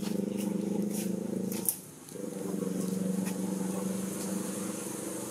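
A steady low drone like a motor running, which drops away briefly about two seconds in and then resumes, with a few light clicks over it.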